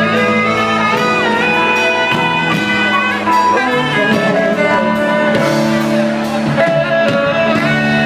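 Live band playing an instrumental passage between sung lines of a pop ballad, a held lead melody over sustained chords.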